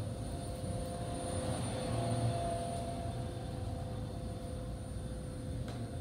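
A steady low mechanical hum with a few faint steady tones above it, unchanging throughout.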